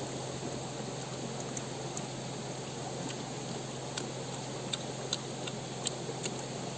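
Steady rush of a river with a few short, sharp clicks of a firm, sour fruit being chewed, most of them in the second half.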